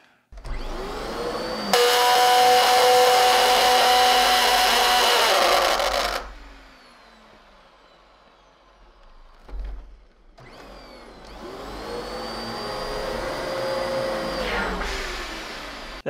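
Dyson DC14 upright vacuum switched on. About two seconds in, a loud steady screech joins the motor as the brush roller stalls: the horrible sound that also often comes with a failing brush-roller clutch. The machine is switched off and winds down, a knock follows, and about ten seconds in it starts again and runs more quietly.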